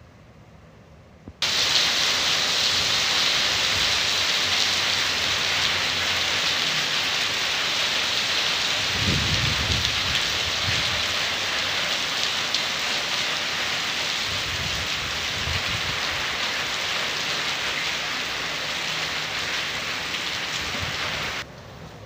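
Heavy rain falling on paving and garden plants: a steady, dense hiss that starts abruptly about a second in and cuts off just before the end. A low rumble comes through about nine seconds in, and fainter ones later.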